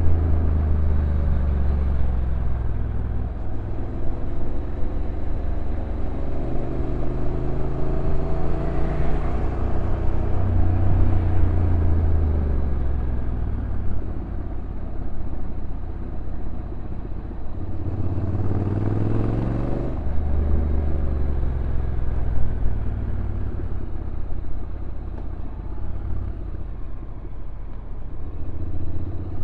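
Honda NC750X DCT motorcycle's stock parallel-twin engine running downhill, its pitch rising and falling with throttle and the automatic gear changes, with two marked rises about a third of the way in and again about two-thirds in.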